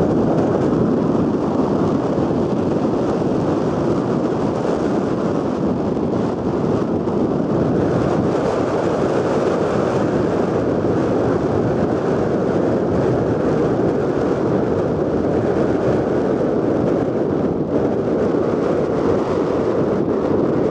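Wind buffeting the camera's microphone, a loud steady noise with no distinct pitch.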